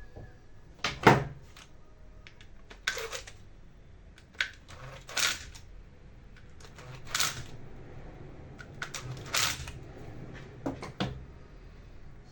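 Irregular clicks, clinks and short scrapes of small metal parts and hand tools being handled on a workbench, the loudest about a second in; no motor is running.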